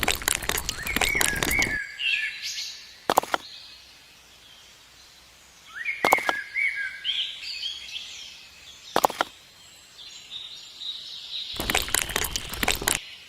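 Small birds chirping in short rising and falling phrases, with a burst of clattering at the start and another near the end, and three single sharp knocks in between.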